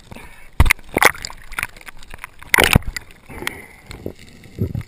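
Water sloshing and gurgling around an action camera's waterproof housing underwater, with a few sharp knocks. The loudest knock comes about two and a half seconds in.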